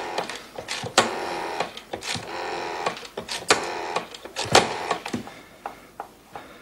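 Irregular sharp mechanical clicks and clatter, with two short rattling runs about a second and two seconds in, thinning out near the end.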